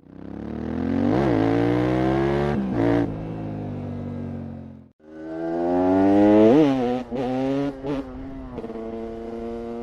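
Supermoto motorcycle engine revving in two short passages, each fading in and out. In each, a quick rev blip rises and falls in pitch, then the engine settles to a steadier, lower note with a few brief cut-offs in the sound.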